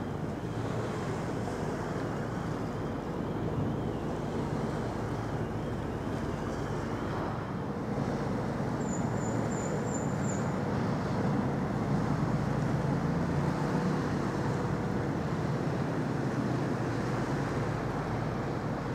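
Steady low drone of the Wightlink hybrid car ferry Victoria of Wight's engines as it passes close by, under wind on the microphone and wash of water. A short run of high chirps about halfway through.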